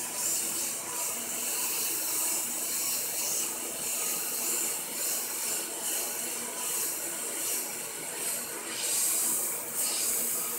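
Siphon-feed airbrush spraying white paint, a steady hiss of air and paint that swells and eases as the trigger is worked, louder near the end.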